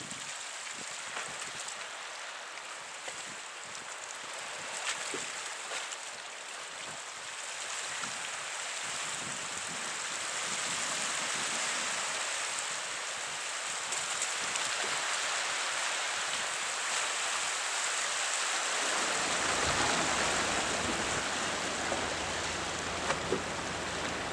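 Sea waves washing against a rocky shoreline, a steady rushing hiss that slowly grows louder. A low rumble joins near the end.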